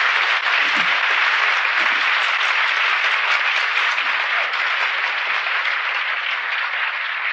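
Live audience applauding steadily in a large hall, easing a little near the end.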